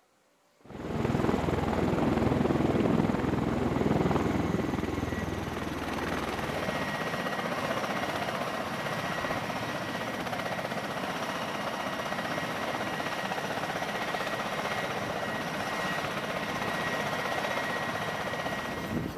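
CMV-22B Osprey tiltrotor running on deck with its proprotors turning: a loud, steady rotor and turboshaft noise with a thin high whine. It begins suddenly about a second in and is heaviest for the first few seconds.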